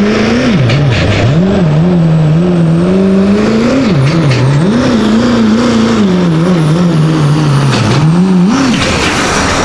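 Pro street diesel pickup truck's engine under full load pulling a sled, its pitch swinging up and down repeatedly as the revs rise and fall. The engine note cuts off sharply near the end as the pull finishes.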